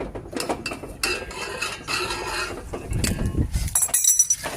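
Metal tools or fittings being handled: a run of clinks, rattles and knocks, with a heavier knock about three seconds in and a short high metallic ring near the end.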